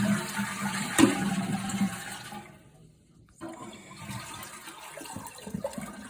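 Toilet flushed by hand with its handle broken and the supply valve shut: water rushes out of the tank and down the bowl, with a sharp knock about a second in. The rush stops after about two and a half seconds, and a quieter trickle with small knocks follows.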